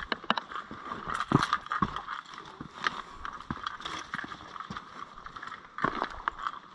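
Footsteps of a hiker climbing a rocky trail: shoes knocking and scuffing on bare rock and grit in an uneven rhythm of about two steps a second.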